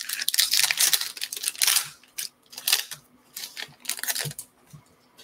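Foil wrapper of a Bowman baseball card pack being torn open and crinkled, loudest in the first two seconds, followed by softer scattered rustles and clicks as the stack of cards is slid out and handled.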